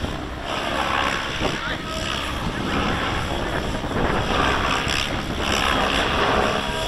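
Gaui X7 700-size electric RC helicopter in flight, its main rotor noise swelling and fading as it manoeuvres. Wind buffets the microphone with a low rumble.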